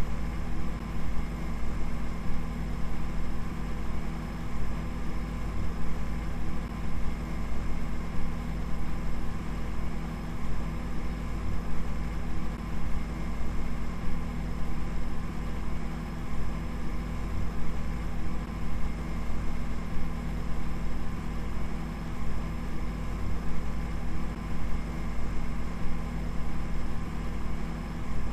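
Steady low drone made of many constant tones, heaviest in the bass, its loudness pulsing unevenly.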